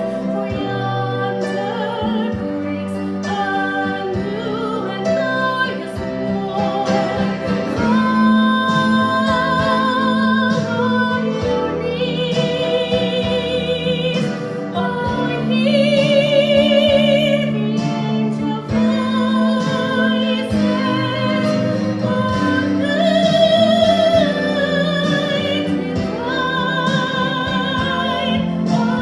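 A female singer holding long notes with vibrato over instrumental accompaniment.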